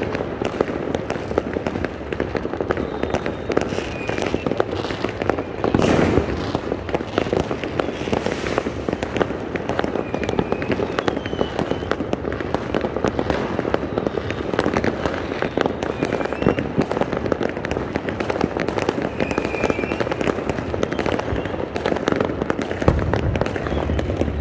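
Dense, continuous fireworks barrage: many overlapping bangs and crackles with no break, swelling briefly about six seconds in.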